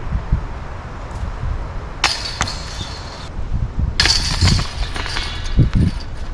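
Metal chains of a disc golf basket jingling as putted discs hit them, twice: a short rattle about two seconds in, then a longer one about four seconds in. Wind buffets the camera microphone throughout.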